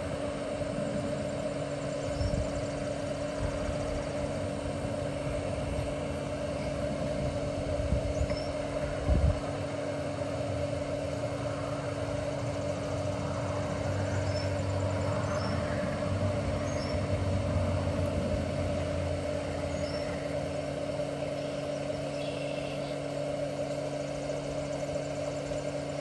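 Steady hum with a few constant tones from a single-cup electric coffee maker brewing, powered through a 750-watt power inverter that it runs near its limit.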